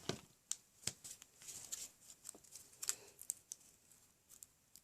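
Faint paper-craft handling: scattered light clicks, taps and rustles of cardstock and a sheet of foam adhesive dimensionals being handled and pressed onto the back of a paper piece.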